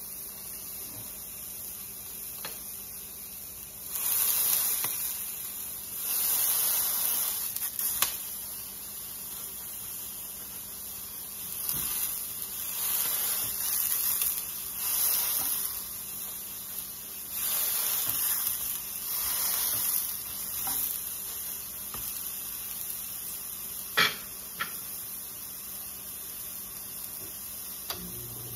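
Ground-beef hamburger patty frying in a nonstick skillet, its sizzle surging in several bursts as it is pressed flat with a spatula. A single sharp clack near the end.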